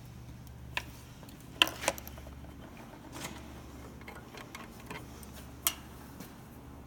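A few scattered sharp metallic clicks and clinks, the loudest about one and a half seconds in and again near the end, over a steady low hum: metal parts and tools being handled around a surface grinder's wheel guard.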